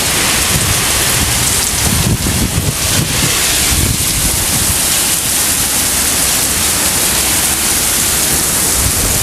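Heavy rain pouring down in strong gusting wind, with the wind buffeting the microphone in irregular low gusts.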